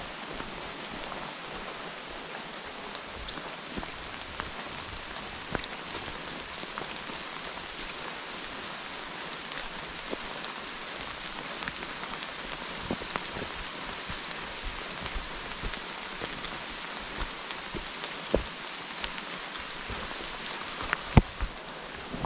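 Steady rain falling, with scattered sharp ticks of close drops striking, and a couple of louder ticks near the end.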